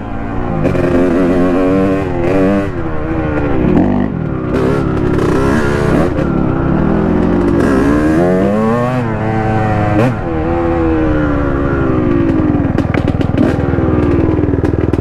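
Dirt bike engine ridden along a trail. Its pitch rises and falls over and over as the throttle is opened and closed. Near the end the revs drop and the separate firing pulses come through as the bike slows.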